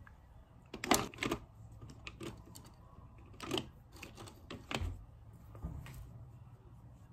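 Irregular light clicks and knocks of small objects being handled and set down, loudest about a second in, with a couple of duller low thumps a little past the middle.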